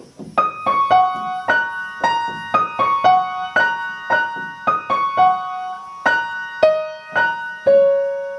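Piano playing a simple melody one note at a time, about two notes a second, ending on a lower note that is held and left to ring.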